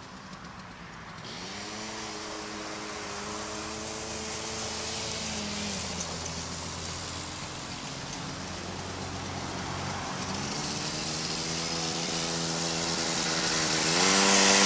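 A motor vehicle's engine accelerating. Its pitch climbs, drops as it shifts gear about five seconds in, then climbs again, getting steadily louder along with a rising rush of road and wind noise.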